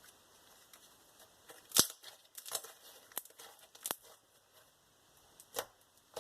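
Activated clear glue slime being stretched and pressed by hand, giving irregular sharp pops and snaps, the loudest about two seconds in.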